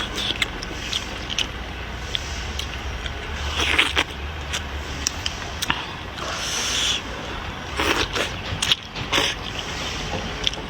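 A person eating at close range to the microphone: chewing and slurping, with several short slurps and many small clicks. Under it runs a steady rumble of wind on the microphone.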